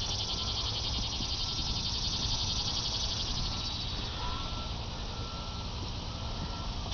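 A steady high buzzing hiss with a short beep repeating about once a second, over a low rumble.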